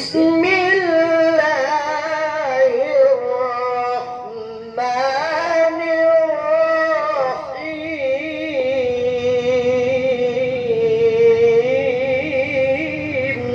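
A man reciting the Quran in the melodic tilawah style, in long ornamented held phrases. There is a short phrase, a brief breath about four seconds in, then a single unbroken phrase of about nine seconds.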